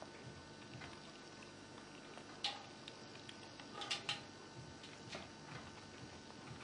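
Red squirrel's claws tapping and scratching on a metal bowl's rim: faint small clicks throughout, a sharp tap about two and a half seconds in and a cluster of louder taps around four seconds, each with a short ring.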